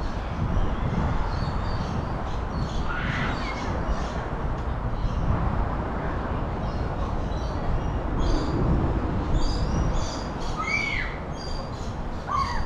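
Outdoor ambience: a steady noisy background with several short shrill squawking calls that bend in pitch, about three seconds in and again twice near the end.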